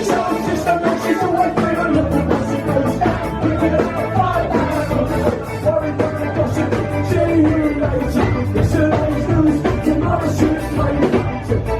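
Live rock band playing a song: a singer over drums, bass guitar, electric guitar and keyboards, with a steady drum beat throughout.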